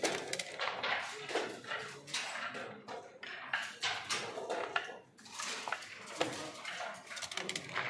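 Backgammon dice clattering down a plastic dice tower onto the board, then checkers being picked up and set down with a run of sharp clicks and knocks.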